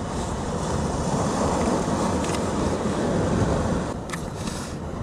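Steady rush of surf and wind on a rocky shore, swelling in the first second and easing off after about four seconds, with a couple of faint clicks.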